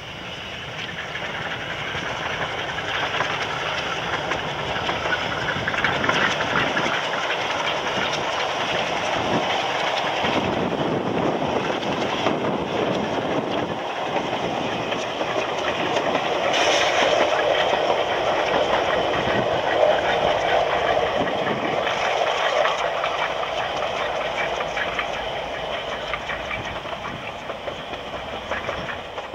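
Narrow-gauge steam locomotive hauling passenger coaches past, with steam and wheels on the rails. It grows louder over the first couple of seconds, is loudest a little past the middle and fades toward the end.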